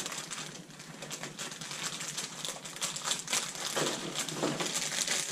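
Plastic Warheads candy bag crinkling and crackling in a quick, irregular run as it is handled and pulled open.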